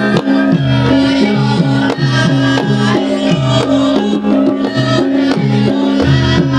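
Javanese lengger dance music from a campursari ensemble: traditional drums and pitched percussion playing a steady, repeating rhythm over bass notes.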